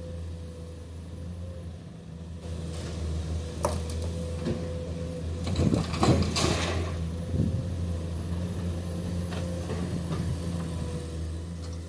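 Komatsu PC210 excavator's diesel engine running steadily under load, with clattering and scraping of limestone rock against steel that starts a couple of seconds in and peaks around halfway, with a few sharp knocks.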